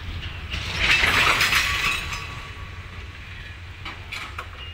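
Railway cars clanking during shunting: a loud burst of metallic clatter about a second in, lasting about a second and then dying away, over a steady low rumble.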